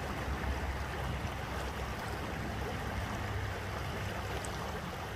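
Steady rush of a river's flowing water, even throughout, with a low rumble underneath.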